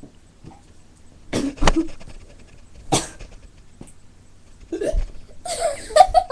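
A person belching repeatedly: four short burps about a second or two apart, the last one longer and raspier.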